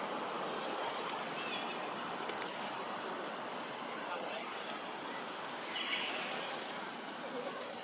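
A bird calling a short high note over and over, evenly about every second and a half, five times, over a steady background hiss of forest ambience.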